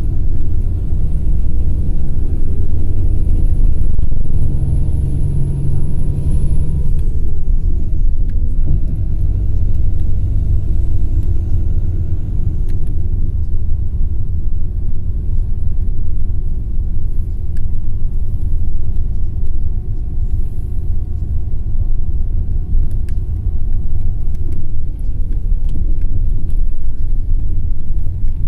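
A car driving, heard from inside: a loud, steady low rumble of road and engine noise. A faint whine holds its pitch and then falls, about seven seconds in and again about twenty-five seconds in.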